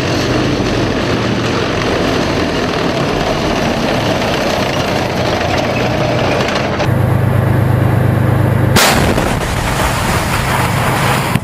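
Tanks on the move, a loud continuous mechanical noise; about seven seconds in it changes to a deeper, steady engine drone. Near nine seconds in comes a single sharp blast, a tank's main gun firing.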